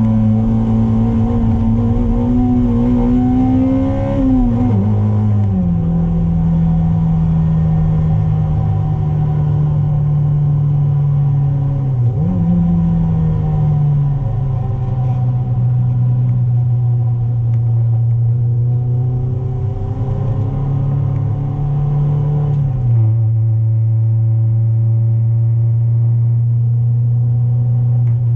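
Toyota MR2's 2ZZ-GE inline-four engine running hard on track, heard from inside the cabin. The engine note climbs, then drops sharply about four seconds in and holds lower, jumps up briefly around twelve seconds and settles again, and falls once more near the end as the engine goes quieter and duller.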